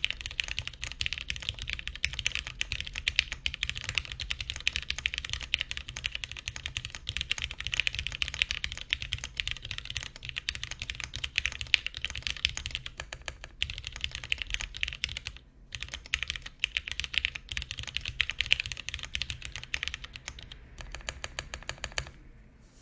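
Fast, continuous typing on a TGR Alice mechanical keyboard with lubed Gateron Brown tactile switches, a polycarbonate half plate and GMK keycaps. The keystrokes run densely, with a brief pause about two-thirds of the way through. The typing stops just before the end.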